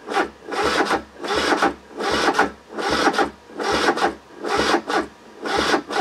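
Kubota Z482 two-cylinder diesel being cranked over slowly by its starter from a jump pack, a labored rhythmic churn about once every three-quarters of a second, without catching. It turns over poorly, which the owner puts down to the booster clips making poor contact on the small battery terminals.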